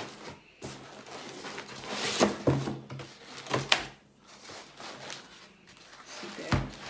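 Cardboard laptop box and white foam packing pieces being handled and pulled apart, with rubbing and a few dull knocks, one of the heaviest near the end.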